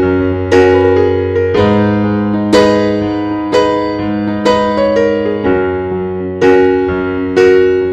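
Slow piano background music: a note or chord struck about once a second, each fading, over held low notes.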